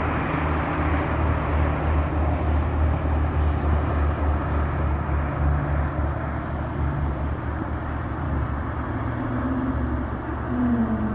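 Embraer E195-E2 jet landing, its Pratt & Whitney PW1900G geared turbofans giving a steady engine noise with a low hum as it touches down and rolls out on the runway. Near the end an engine tone glides down in pitch.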